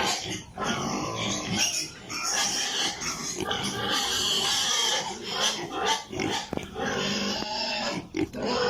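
Piglets squealing and grunting in a pen, many short overlapping calls with no break.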